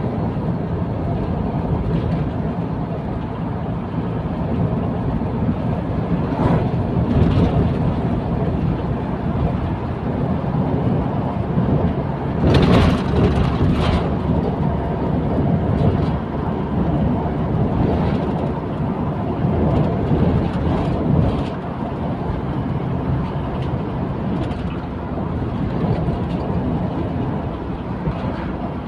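Steady road and engine noise inside a moving car's cabin, with a brief louder patch about halfway through.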